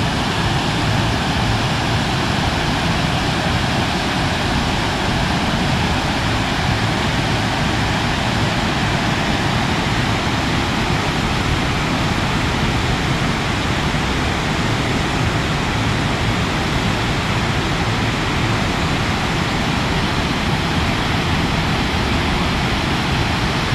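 River water flowing: a loud, steady, even rush that holds without a break.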